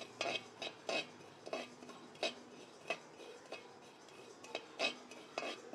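A metal spatula scraping and knocking in a metal kadai, stirring mustard and fenugreek seeds as they dry-roast. The strikes come irregularly, a dozen or so, and some leave the pan ringing briefly. The mustard seeds are at the popping stage.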